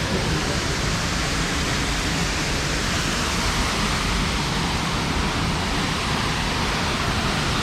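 Waterfall rushing: a loud, steady, unbroken hiss of falling water.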